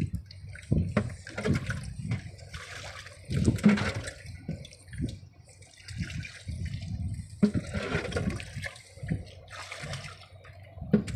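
Sea water sloshing and splashing in irregular surges.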